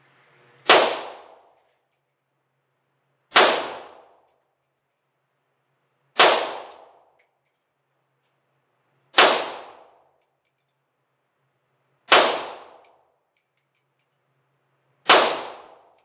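Six single rifle shots from an Arsenal SLR-107FR AK firing 7.62x39, fired slowly at about three-second intervals for aimed group shooting. Each is a sharp crack that rings out for under a second.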